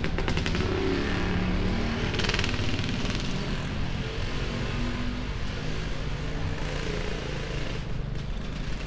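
Road traffic on a town street: vehicle engines running and passing, a steady engine hum, with a brief brighter hiss about two seconds in.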